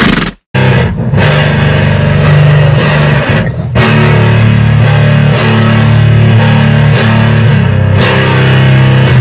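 Rock music led by electric guitar, with a steady beat. It kicks in about half a second in, after a brief sound that cuts off.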